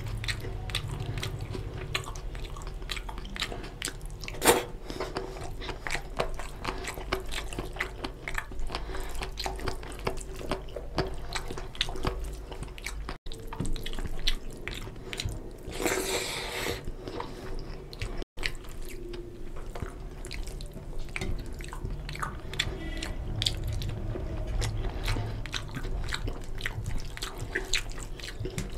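Close-miked eating sounds: wet, sticky squelching and crackling of fingers mixing rice into oily curry on a steel plate, with chewing and lip smacks. One sharp click stands out about four seconds in.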